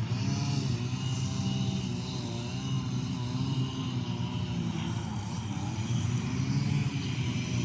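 Steady engine-like drone with a low hum and a gently wavering tone above it.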